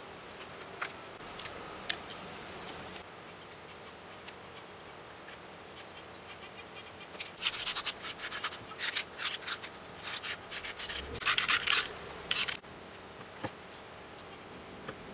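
Enamelled copper winding wire and insulating paper rustling and scraping against an electric motor's stator as coils are pushed into its slots during rewinding. A few light ticks at first, then about halfway in a dense run of crackly scratching that stops shortly before the end.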